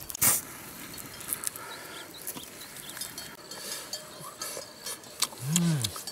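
Hands pulling apart charred grilled fish on a bamboo-slatted basket: small crackles and rustles of skin, flesh and slats, with a sharp crack about a third of a second in. A short low hum rises and falls near the end.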